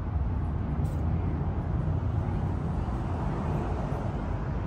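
Steady low rumbling noise outdoors, heaviest in the bass and flickering unevenly, with no clear pitch or rhythm.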